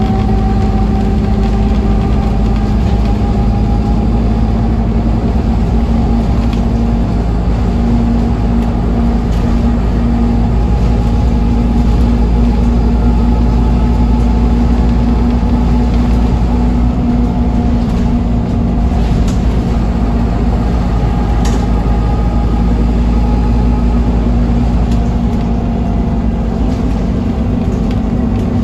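Scania N230UD OmniCity double-decker bus's five-cylinder diesel engine running steadily under way, heard inside the passenger cabin as a constant low drone with a fainter whine that drifts slowly in pitch. A couple of faint clicks come from the interior partway through.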